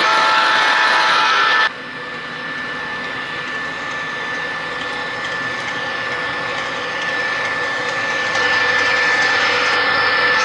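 Model diesel locomotive running on a layout, a steady whine over a noisy hum. A louder stretch cuts off abruptly about two seconds in. After that the MTH ES44AC GEVO model's sound grows gradually louder as it approaches, with a step up near the end.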